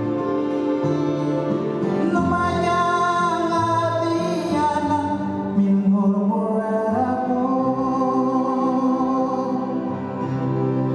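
A man singing a slow song in a Yolngu language, holding long notes, to his own acoustic guitar, whose low notes change every second or two.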